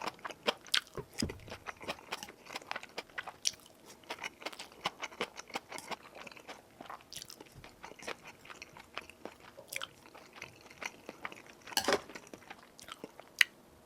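Close-miked mukbang eating: a person biting and chewing food with crisp crunches and wet mouth clicks at an uneven pace, a louder run of crunching about twelve seconds in and a single sharp click near the end.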